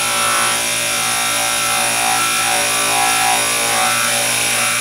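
Small electric motor running steadily with a hum and a high whine, driving a buffing wheel with light compound. A clear welding cover lens is held against the wheel, adding a wavering rubbing sound as spatter and scratches are buffed off it.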